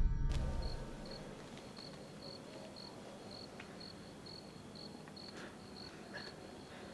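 A cricket chirping steadily, one high chirp about twice a second. The tail of the opening music cuts off just after the start.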